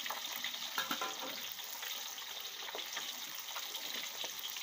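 Whole sea bass deep-frying in hot oil in a steel wok, giving a steady sizzle, with a few clicks and scrapes from a metal spatula in the wok about a second in.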